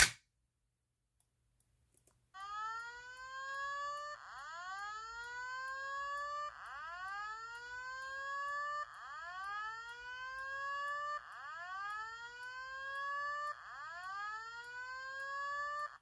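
A Simplex fire alarm pull station's handle is pulled down with a sharp click. About two seconds later a Simplex TrueAlert speaker strobe starts sounding a slow whoop evacuation tone: a rising sweep repeated about every two and a half seconds, six times.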